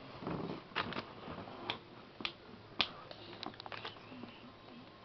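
A string of faint, sharp clicks at irregular intervals, coming quicker in a short run a little past the middle.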